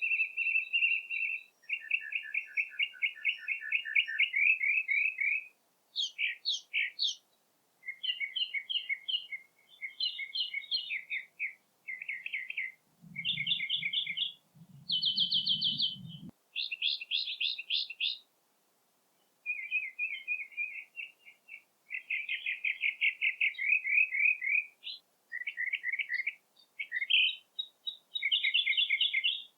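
Songbird song: a run of varied, rapid trills and quickly repeated high chirps, phrase after phrase with brief pauses between them.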